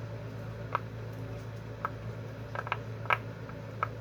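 Soft, sharp pops at irregular intervals, about six in all, as the bubbles of a silicone pop-it fidget toy are pressed through. A steady low hum runs underneath.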